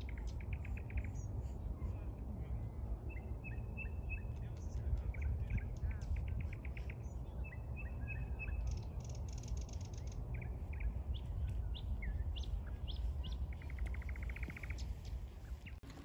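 Nightingale singing: a run of varied phrases with fast repeated-note trills and short whistles, over a steady low rumble.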